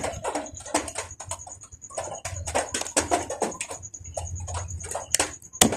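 Handling noise close to the microphone: many short, irregular taps, clicks and rubbing sounds as a hand moves near and against the recording phone.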